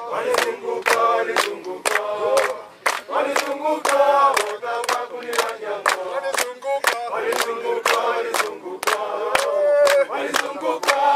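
A group of voices singing a chant together over a steady percussive beat of about three hits a second.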